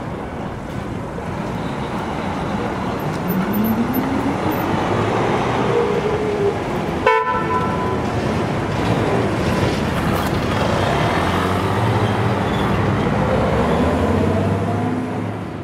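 Road traffic passing close: engines rising in pitch as vehicles pull away, and the low running of a heavy truck's diesel engine in the second half. A short horn toot sounds about seven seconds in.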